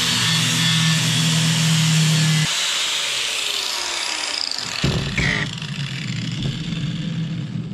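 Angle grinder with a flap disc grinding rust off a steel roofing spade blade; about two and a half seconds in it comes off the work and winds down in pitch. A sharp knock follows near the middle, then a low rumbling noise that cuts off suddenly at the end.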